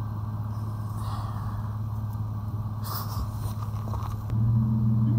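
Steady low hum of an idling vehicle engine, stepping up in level a little over four seconds in.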